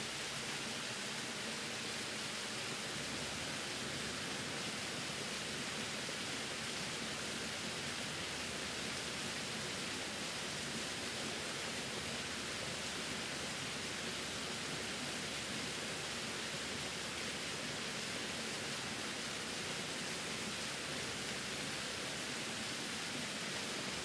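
Small waterfall spilling down a rock face: a steady, even rush of falling water.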